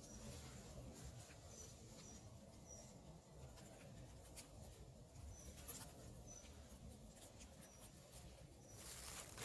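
Faint, short, high-pitched calls of a small bird, repeated at uneven intervals over a near-silent background. Just before the end, a rustle of dry leaves begins.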